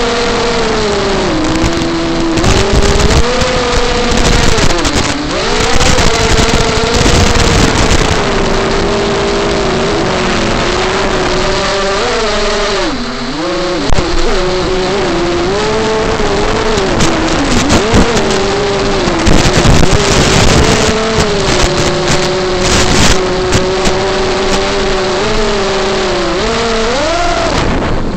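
FPV quadcopter's brushless motors and propellers whining, the pitch rising and falling constantly with the throttle during acrobatic flying. The whine drops away briefly about 13 seconds in, then picks up again and climbs near the end.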